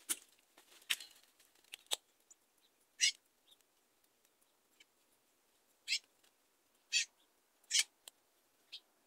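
A small bird gives short, sharp call notes, about eight in all, spaced roughly a second apart with a pause in the middle.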